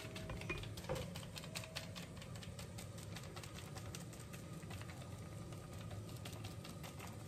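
Fingers tapping a foil seasoning sachet to shake powder and flakes onto noodles in a steel pan: light, irregular ticks, several a second.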